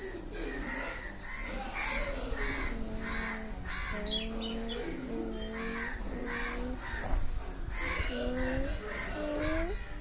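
Crows cawing repeatedly, a run of short, harsh calls that rise and fall in pitch.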